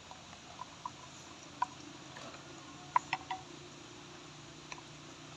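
Metal spoon stirring thick flour batter in a glass bowl, giving a few light clicks against the glass, the sharpest cluster about three seconds in.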